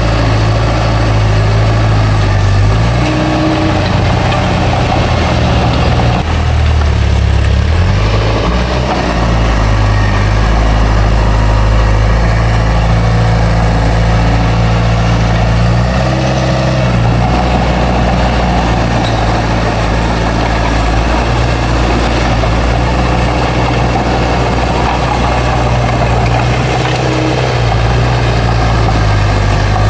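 Bulldozer's heavy diesel engine running steadily, its pitch shifting a few times as the load changes.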